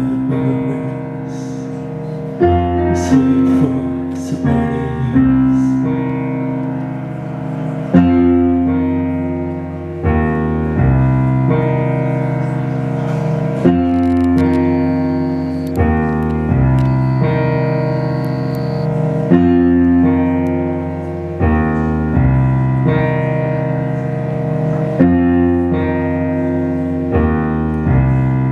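Live band music dominated by a keyboard playing long sustained chords, a new chord struck about every three seconds, with low bass notes underneath; an instrumental stretch with no singing.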